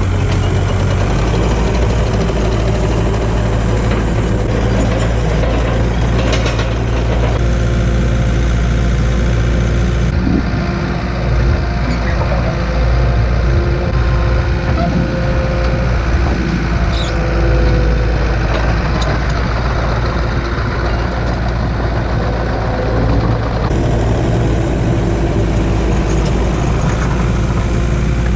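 Heavy-equipment diesel engine running steadily.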